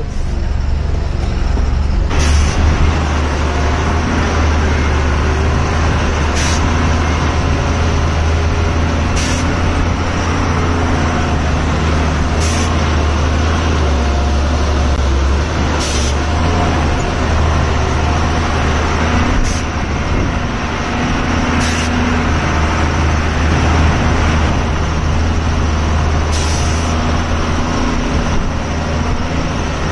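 Diesel truck engine running steadily with a deep drone, heard from inside the cab as it drives over a rough dirt road. Brief sharp hisses come every few seconds.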